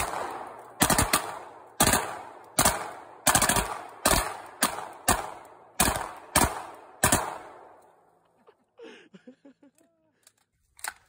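Masterpiece Arms MPA30T Defender 9mm pistol firing a string of about a dozen semi-automatic shots, roughly one every half to two-thirds of a second, each with a short echo. The string stops about seven seconds in.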